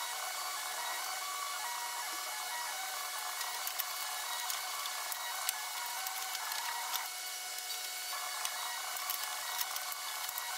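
A steady hiss like a blowing fan, with scattered light clicks and taps of hand tools on the car's front-end parts, more of them from about three and a half seconds in.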